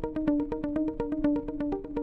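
Acoustic guitar fingerpicked in a fast, even arpeggio of about eight notes a second, with the chord changing shortly before the end.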